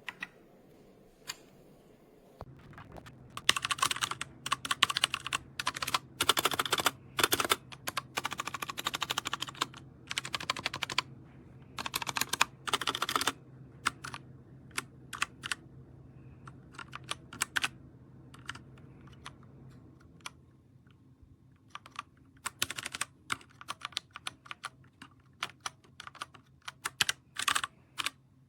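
TMKB T68SE 60% mechanical keyboard being typed on: fast runs of clicking keystrokes for the first half, then slower, separate key presses.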